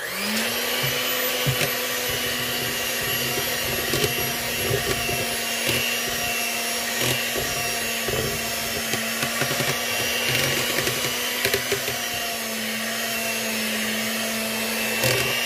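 Electric hand mixer switching on and running at a steady pitch, with irregular knocks from its beaters, as it beats milk into flour for a chocolate sheet cake batter.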